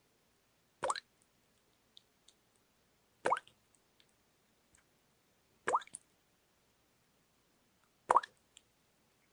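Water dripping into water: four drops falling at an even pace, about one every two and a half seconds, each a short plop that rises in pitch. Faint small ticks sound between some of the drops.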